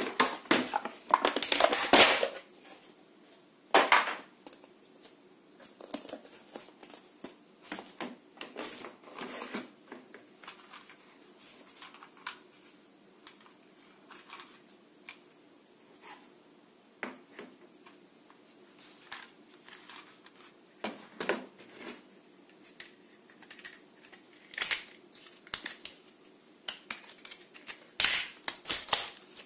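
Plastic toy guns and their packaging being handled: scattered clicks, crinkling and rustling, busiest in the first two seconds and again near the end.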